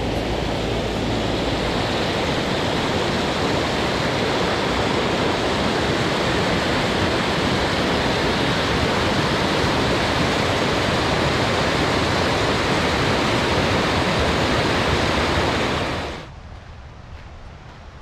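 Whitewater mountain creek rushing close by: a loud, steady rush of water. It cuts off sharply about sixteen seconds in, leaving a much quieter background.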